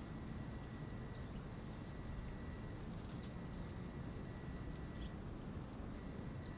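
Steady low outdoor background rumble, with a small bird giving short, high, down-slurred chirps about every two seconds and a faint steady high tone underneath.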